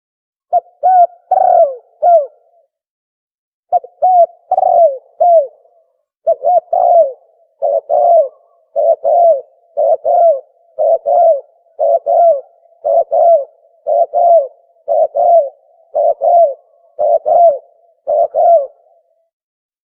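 Dove (tukmo) cooing call used to lure birds for hunting: short phrases of two or three low coos repeating about once a second, with a brief pause about three seconds in.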